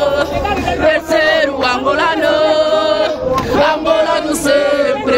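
A crowd of protesters singing a chant together, many voices on long held notes.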